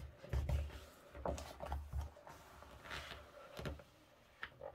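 A coloring book being pressed flat by hands to break in its spine: soft paper rustles and rubbing, with a few low thumps as the pages are pushed down.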